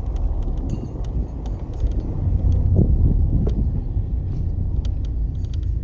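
Mazda MX-5 (ND Roadster) driving, a steady engine and road rumble that swells slightly partway through, with scattered faint clicks over it.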